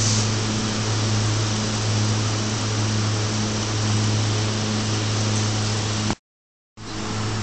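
Steady machine hum with a low tone under an even hiss, breaking off for about half a second near the end before resuming unchanged.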